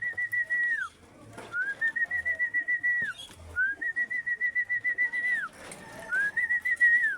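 A high, warbling whistle sounded four times. Each call slides up onto a held note, lasts one to two seconds, then drops off.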